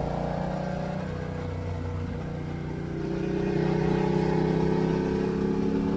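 Motorcycle engine running while riding, heard from on the bike. It pulls steadily at first, then about halfway through it gets louder and its note climbs as the bike accelerates.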